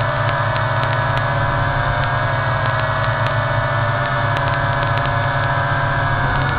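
WLToys V666 quadcopter's motors and propellers whining and buzzing steadily in flight, heard from the camera on board, with small shifts in pitch.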